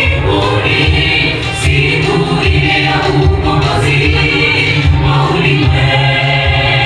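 A church youth choir singing a gospel song, loud and full, with a strong low bass pulsing beneath the voices.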